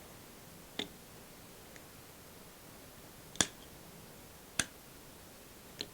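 Four sharp clicks from a precision fibre-optic cleaver being handled as an optical fibre is set in and cut; the click about three and a half seconds in is the loudest.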